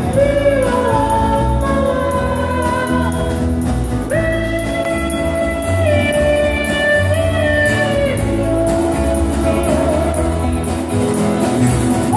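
Live country-western band playing, with strummed acoustic guitars under singing that holds long notes.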